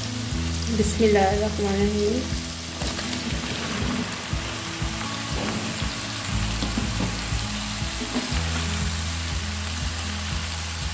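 Onions sizzling in hot oil in a wok. About two seconds in, a pile of cut apple gourd (tinda) pieces is tipped in, clattering and knocking into the pan for a few seconds, and the frying goes on under the raw vegetables.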